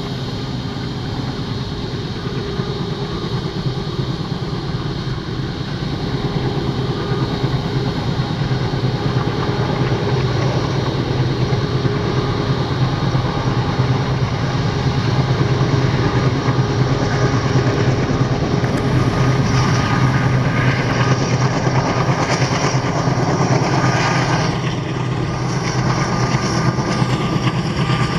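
Twin ALCO diesel locomotives hauling a passenger train, their engines running with a steady low rumble that grows gradually louder over the first half.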